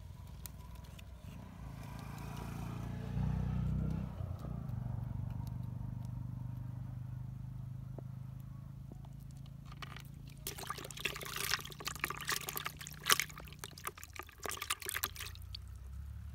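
A small freshly caught fish flapping and splashing in shallow water in a plastic bucket: a dense run of sharp, crackly splashes lasting about five seconds in the second half. Under it a low, steady engine drone.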